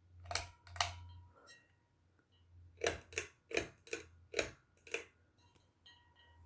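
Sharp mechanical clicks from a ceiling fan's pull-chain switch: two near the start, then a quicker run of six about every half second, over a steady low hum.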